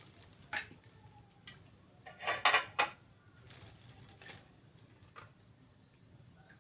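Kitchen utensils and dishes being handled: a few light separate knocks, with a louder short clatter a little over two seconds in.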